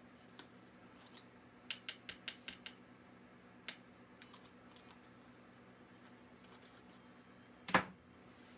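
Light, sharp clicks and taps of small hard objects being handled, with a quick run of about six clicks about two seconds in and one louder knock near the end.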